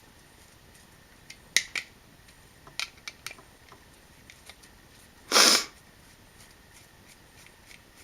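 Small clicks and taps from handling an electrical outlet and tools while loosening its terminal screws, with one short scrape about five seconds in, the loudest sound.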